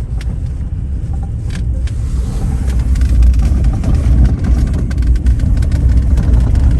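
Car road and engine rumble heard inside the cabin while driving on a snowy, partly iced road, with scattered small crackles from the tyres. It gets louder about halfway through.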